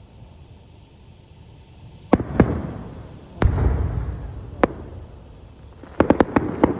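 Aerial firework shells bursting: two bangs about two seconds in, then a louder bang with a long rolling echo, another single bang, and a quick run of crackling reports near the end.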